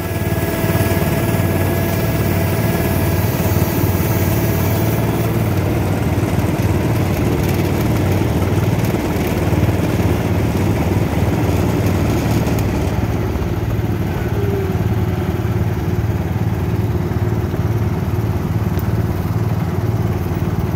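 Small garden tractor engine running steadily under load while the tractor pulls on a chain hitched to a plow, with a thin whine that stops about five seconds in.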